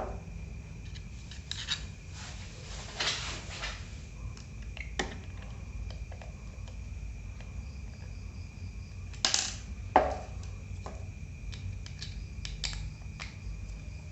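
Small clicks, taps and light scraping from handling laptop drive hardware, as the metal mounting bracket is moved from the old hard disk onto the new SSD. The louder knocks come near the start, about three seconds in, and twice around nine to ten seconds in.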